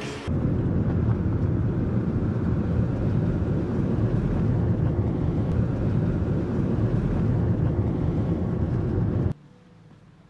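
Road noise inside a moving car: a steady low rumble of tyres and engine that cuts off suddenly about nine seconds in.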